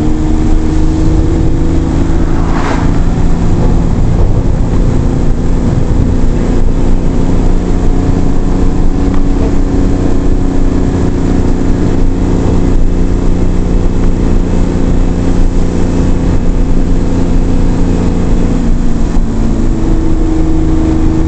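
Suzuki Carry kei truck's three-cylinder engine running under way, heard from inside the cab, its pitch rising and falling with the throttle over a steady rumble of road noise.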